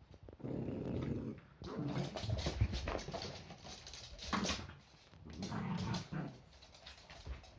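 Yorkshire terriers vocalizing in play over toys: low growling and whining in several rough bouts of about a second each, with one short sharper sound about four and a half seconds in.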